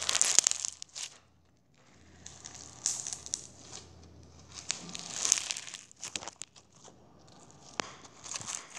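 Crunchy slime being squeezed and worked in the hands close to the microphone, crackling and popping in about four bursts, loudest at the start.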